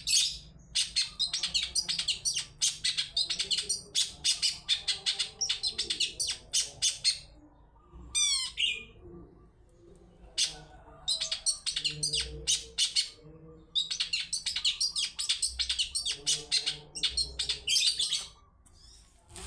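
Long-tailed shrike (cendet) singing fast runs of sharp, high chirps in the 'toet toet' style. The song breaks off about halfway, where a quick descending trill is heard, then picks up again.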